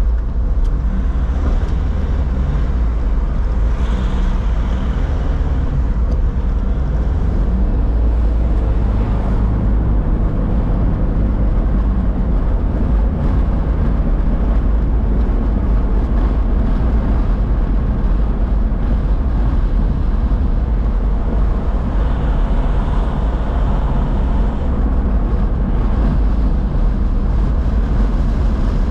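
A steady, loud low rumble of outdoor city street noise, with a faint hiss above it and no distinct events.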